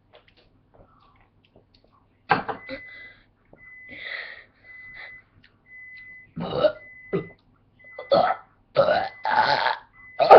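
A person making deliberate burps: after a short pause, a series of loud, rough burps follows one another in quick succession.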